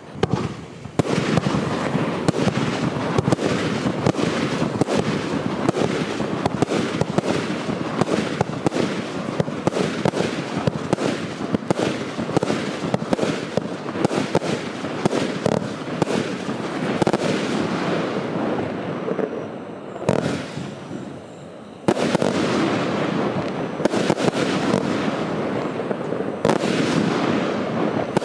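Wolff Insanity 200-shot compound fireworks cake firing a rapid, dense barrage of shots. The firing drops away for about two seconds near the end, then resumes at full pace.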